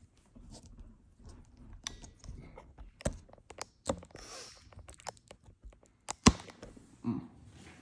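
A series of irregular clicks and knocks, the loudest a sharp knock about six seconds in, with a short rustle about four seconds in.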